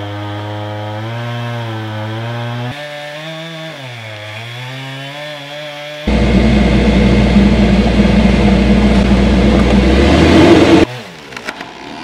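Chainsaw felling a large poplar tree. For the first six seconds it runs with a wavering pitch. Then it is suddenly much louder and denser, cutting at full throttle for about five seconds, and it stops abruptly: this is the final cut, just before the tree starts to fall.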